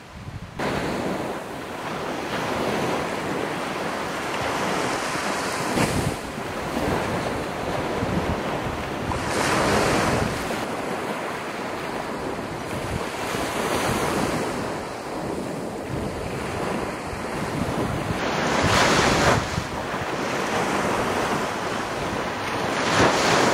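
Small waves breaking and washing up on a sandy beach, with wind buffeting the microphone. The wash swells and fades every few seconds and stops abruptly at the end.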